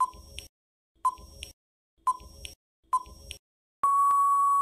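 Quiz countdown-timer sound effect: a short tick with a brief ping once a second, four times, then a steady high beep of under a second as the time runs out.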